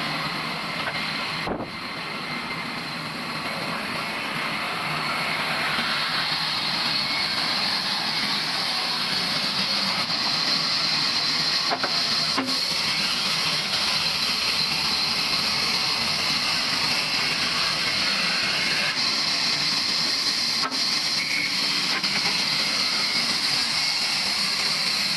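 A sawmill saw cutting steadily through a wooden beam. The cutting noise builds over the first few seconds and then holds evenly.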